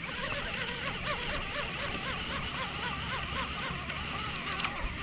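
Baitcasting reel cranked fast to retrieve a jig, its gears whirring in a rapid, even pulsing.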